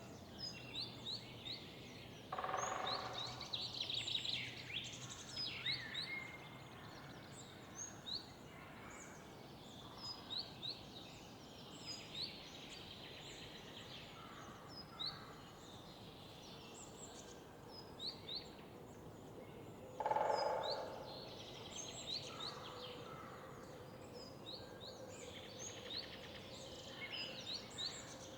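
Morning birdsong in a city park: many birds chirping and calling in quick short notes. Two louder noisy sounds, each about a second long, come about two seconds in and about twenty seconds in, over a faint steady background hum.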